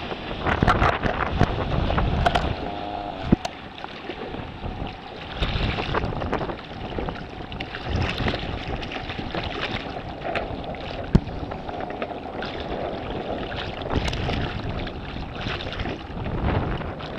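Gusts of wind buffeting the microphone on open water, over the wash of lake water, rising and falling every second or two, with a couple of sharp knocks.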